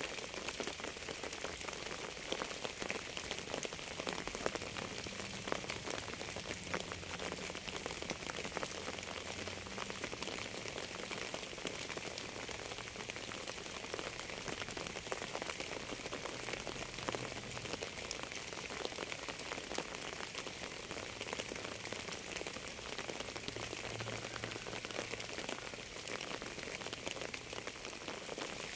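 Steady rain: an even hiss of rainfall with a dense patter of individual drops.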